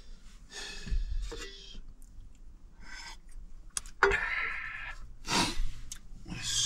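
A person's breaths and sighs: about six separate breathy bursts, the loudest a sharp one about four seconds in.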